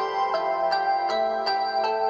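Samsung Galaxy A6 ringtone playing: a melody of short struck notes, about three a second, over a held low note that comes in about a second in.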